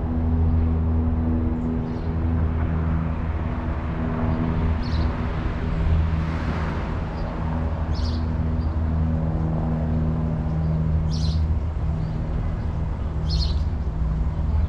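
Outdoor city sound: a steady low machine hum, like an idling engine, with birds chirping briefly four or five times.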